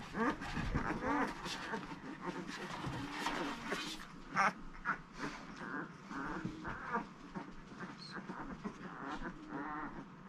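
Young basset hound puppies squeaking and whining in many short, high, wavering calls, with one sharp click about four and a half seconds in.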